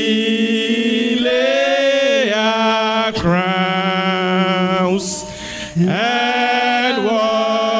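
A woman's solo voice singing long, held worship phrases into a microphone, in a slow chant-like way. There are short breaks for breath about three seconds in and again about five and a half seconds in.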